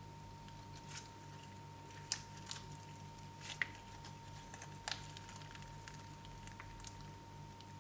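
Slime being squeezed and worked by hand, giving small irregular crackles and pops, the loudest about two, three and a half and five seconds in, over a faint steady hum.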